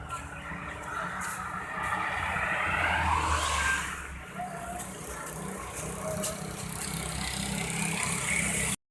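A motor vehicle passing close by on the road: engine and tyre noise rising to its loudest about three seconds in, its pitch sweeping up and then down as it goes by, then running on more faintly. The sound cuts off suddenly near the end.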